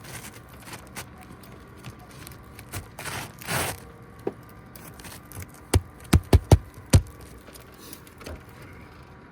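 A brief scrape of asphalt shingle, then five sharp hammer blows in quick succession past the middle, nailing a lifted roof shingle back down.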